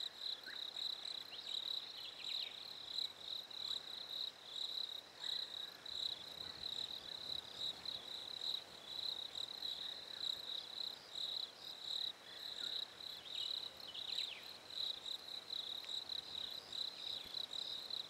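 Crickets chirping in a steady, high-pitched, rapidly pulsing chorus, several chirps a second.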